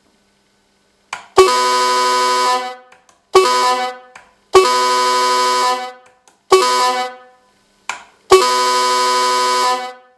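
Sampled multi-tone truck air horn from a Servonaut SM7 RC-truck sound module, played through a loudspeaker. It sounds five blasts of the same chord: long, short, long, short, long.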